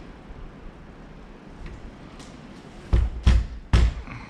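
Three quick, heavy knocks about three seconds in, as keypad lock hardware is knocked against the door while being fitted.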